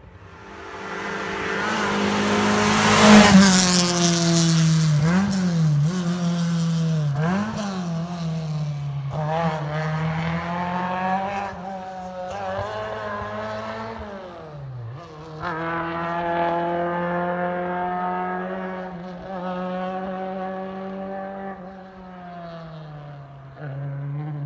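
Rally car engine running hard on a special stage. It rises sharply to its loudest a few seconds in, then keeps revving, with its pitch repeatedly dropping and climbing again at gear changes and lifts for corners as it drives on.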